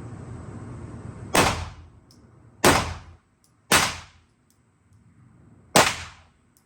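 Four gunshots, unevenly spaced: three about a second apart, then a last one about two seconds later. Each shot dies away over about half a second.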